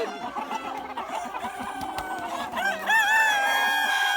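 Chickens clucking, then a rooster crows about two-thirds of the way in: a rising start and a long held note that carries on to the end.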